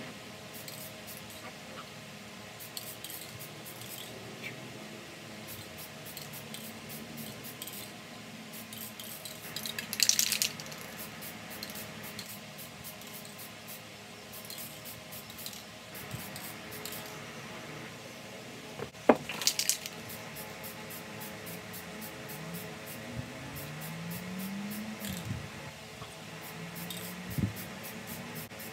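Aerosol can of Rust-Oleum camouflage spray paint hissing in two short bursts, about ten seconds in and again near twenty seconds, with scattered light clicks between them.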